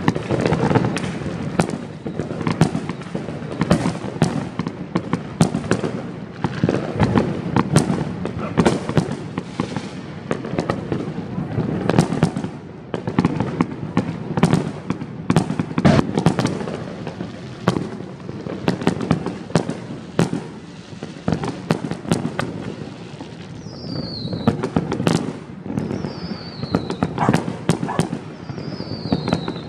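Many fireworks and firecrackers going off, a continuous irregular string of sharp bangs and crackles at varying distances over a low rumble. Near the end come three short whistles that fall in pitch.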